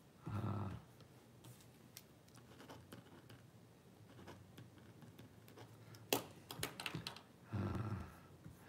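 Typing on a computer keyboard: scattered key clicks, with a quick flurry of keystrokes about six seconds in, as a search is entered on a website.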